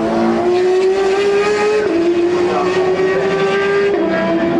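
Race car engine accelerating hard, its pitch climbing steadily, with a quick upshift about two seconds in and another near the end.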